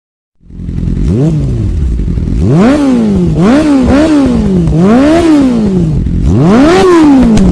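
Motorcycle engine revved hard again and again, its pitch climbing and dropping about six times, the last rev the longest, then cutting off abruptly.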